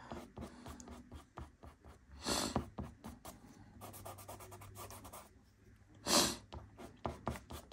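Nupastel hard pastel sticks scratching on pastel paper in short, quick strokes. Two louder breaths, one a couple of seconds in and one near the end.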